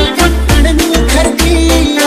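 Background music with a heavy, pulsing bass beat and a melody over it.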